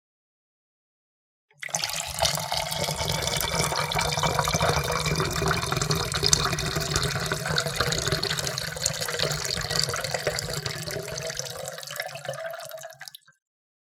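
Water poured in a steady stream into a cup, starting about a second and a half in and stopping just before the end. Its pitch rises a little near the end as the cup fills.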